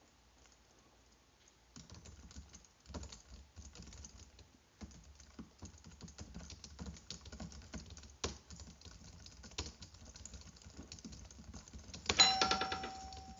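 Typing on a computer keyboard: irregular, rapid key clicks. Near the end a brief ringing chime, the loudest moment, fades away.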